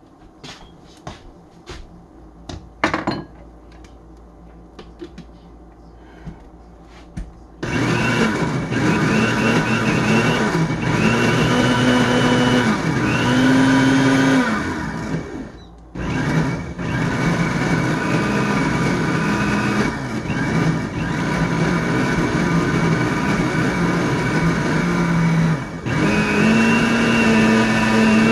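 A few light clicks, then about eight seconds in an electric blender starts, pureeing cooked tomatoes and onion into a sauce. The motor's pitch wavers as the load shifts. It cuts out for a moment about halfway through and runs on again.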